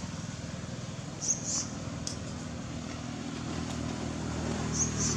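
A small engine running steadily with a pulsing hum, growing a little louder through the second half. Two brief high-pitched squeaks cut in about a second in and again near the end.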